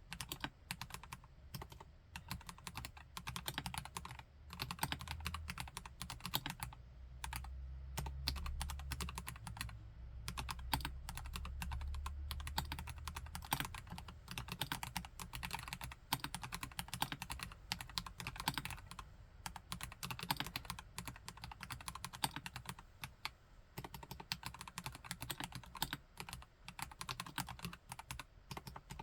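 Continuous fast typing on a plastic-cased KLC Nori mechanical keyboard with Gateron Yellow Pro V2 linear switches: many quick overlapping key clicks, with a deeper thud under the keystrokes between about five and thirteen seconds in.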